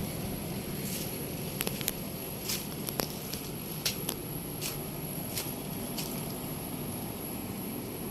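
Air conditioner outdoor unit running with a steady low hum, with scattered light clicks and crackles over it.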